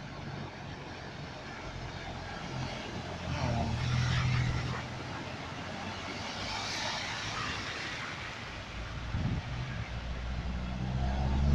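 Cars driving slowly through a deeply flooded street: engine hum and tyres pushing through standing water. A car passes with a loud swishing splash about halfway through, and another car approaches near the end.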